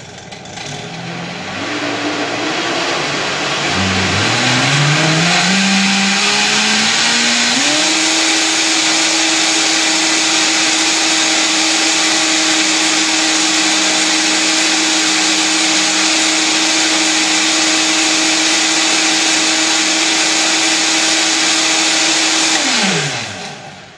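Countertop blender puréeing a thick homemade tube-feeding blend of milk, fruit, quinoa and spinach. The motor starts, speeds up in steps over the first several seconds, runs steadily at high speed, then winds down and stops near the end.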